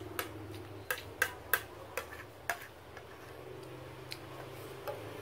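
Eating utensil clicking against a dish: about eight short, sharp clicks at irregular spacing, the loudest between one and two seconds in, over a steady low hum.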